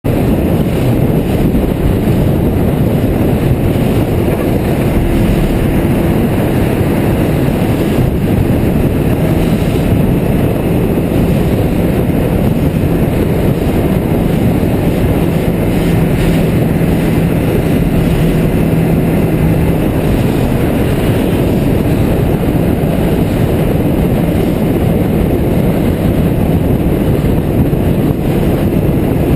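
Sport motorcycle riding at low freeway speed: steady wind rush over the microphone with the engine's low hum underneath, held at fairly even revs.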